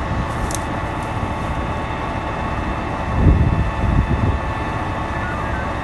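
Steady rumble and hiss of a moving vehicle, with two louder low surges about three and four seconds in.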